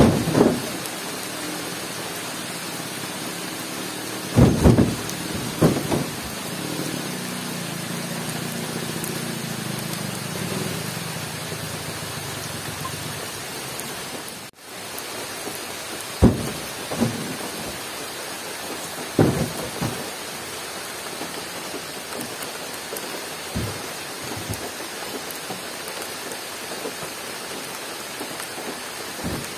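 Steady hiss of rain falling, broken about half a dozen times by heavy thuds as oil palm fruit bunches are heaved off carrying poles into a pickup's bed.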